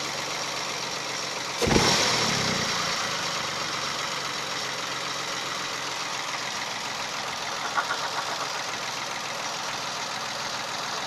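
Peugeot 107 1.0 12V three-cylinder engine idling steadily, with the weird running noise that the owner traces to a failing water pump. A single thump comes about a second and a half in.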